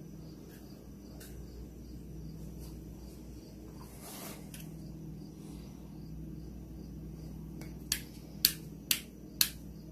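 Steady low hum, then four sharp clicks of hard plastic near the end as the freshly drilled black plastic switch mounting plate is handled and the switch is fitted to its hole.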